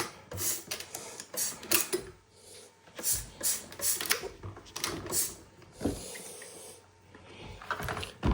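Quick irregular bursts from a trigger spray bottle, spraying dish detergent into a Teletype Model 35 typing unit to degrease it, with a few dull knocks from handling the part.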